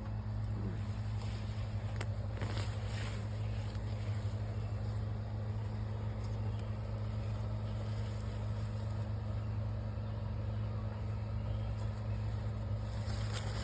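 Steady low mechanical hum, like a motor or engine running, with a few faint rustles and scrapes about two seconds in and again near the end.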